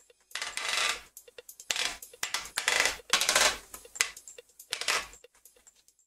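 Segmented plastic ball-joint flexible arm being bent and repositioned, its snap-together segments crackling and clicking in about five short bursts.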